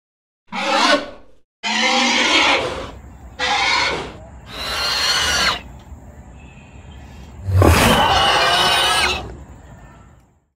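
Sound-effect dinosaur calls: a run of about five separate roars and screeches with sliding pitch. The last is the longest and loudest, opening with a low thud about three quarters of the way in and trailing off near the end.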